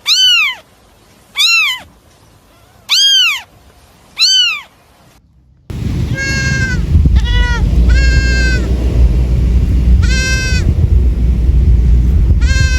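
Four short, high meow-like animal calls about a second and a half apart, each rising then falling in pitch. Then, after a sudden cut, a goat bleats five times over a loud steady low rumble.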